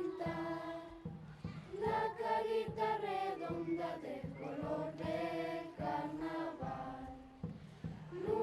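Children's choir singing a song together in phrases of held notes, with a brief pause near the end before the next phrase.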